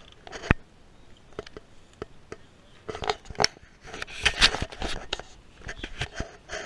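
Rustling, crackling noise with scattered sharp knocks as a large tractor tire rolls through tall grass right up to the camera. The noise is densest in the middle, as the tire reaches the microphone.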